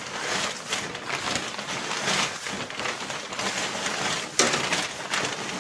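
Aspen wood-shaving bedding being shaken out of a plastic bag onto the cage floor: a continuous rustle of shavings and crinkling bag plastic, louder from about four and a half seconds in.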